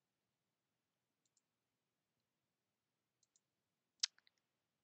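Near silence broken by a few faint computer mouse clicks, in quick pairs; the sharpest comes about four seconds in.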